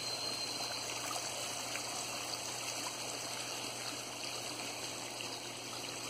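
Running water from a small pond waterfall: a steady, even rush.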